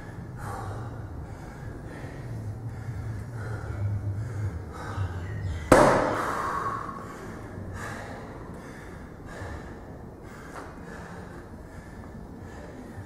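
A man breathing hard and rhythmically through a fast set of sandbag reps, with a puff of breath about once a second. About six seconds in there is a single loud bang with a short ring after it.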